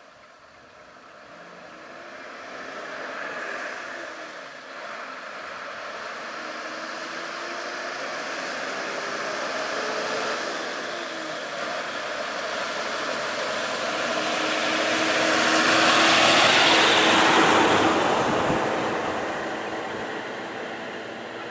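Road vehicle passing close by: the noise of engine and tyres slowly swells to a peak about three quarters of the way through, then fades, over a low steady engine hum.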